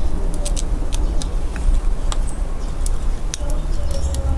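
Small sharp clicks and taps of plastic laptop parts being handled and pressed back into the chassis during reassembly, over a steady low rumble.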